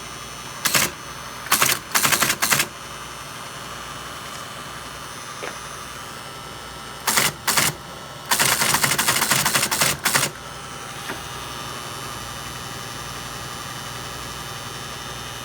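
Teletype Model 33 ASR printing typed characters in local mode: short bursts of rapid mechanical clattering, the longest about two seconds, about eight seconds in. Underneath runs a steady buzz that the owner traces to near the motor.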